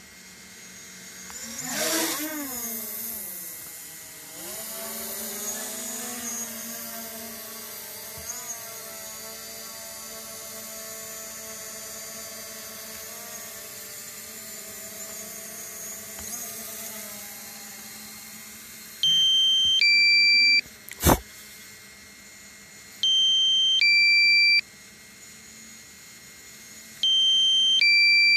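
Small quadcopter drone's propellers humming, the pitch sweeping about two seconds in and then holding steady. From about two-thirds of the way through, a loud electronic alert sounds three times, about four seconds apart, each a falling two-note beep about a second and a half long.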